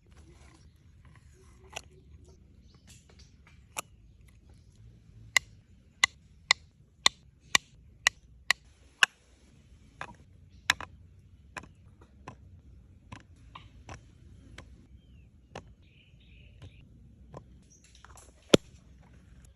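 Sharp knocks or chops: a run of about eight evenly spaced strikes, roughly two a second, then scattered lighter taps and clicks, with one strong knock near the end.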